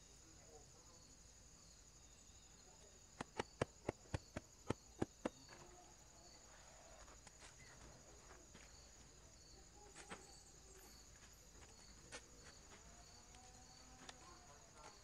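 A steady high-pitched insect drone, with a faint regular pulsing under it. About three seconds in comes a quick run of about eight sharp taps, and a few fainter taps follow later.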